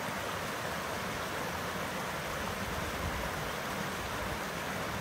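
Rocky mountain stream tumbling over boulders in small cascades: a steady, even rush of water.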